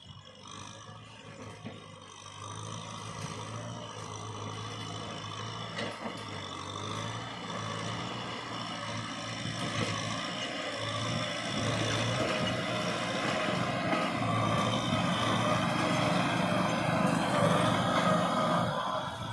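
Kubota farm tractor's diesel engine running under load while tilling a dry field, growing steadily louder as the tractor comes close.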